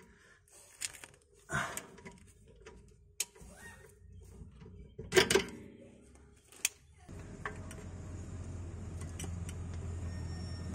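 Scattered metallic clicks and knocks of a wrench and 16 mm socket tightening the rear shock absorber's lower mounting bolt and nut, with a louder knock about five seconds in. From about seven seconds a vehicle engine's steady low hum sets in and slowly grows louder.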